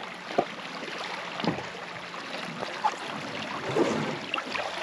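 Shallow river water rushing through a riffle and swirling around a man's legs as he wades and pushes an inflatable raft, with a few sharp knocks, the loudest about half a second in.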